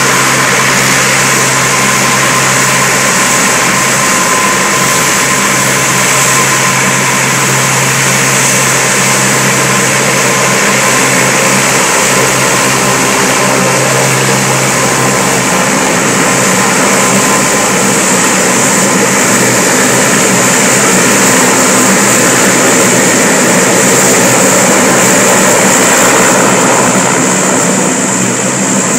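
Lockheed P-3 Orion's four Allison T56 turboprop engines running as it taxis: a loud, steady drone with a high whine. The low hum changes about halfway through.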